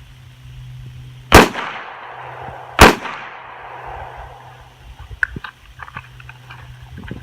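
Two handgun shots about a second and a half apart, each followed by a short echo, fired after the start of a timed IDPA course of fire.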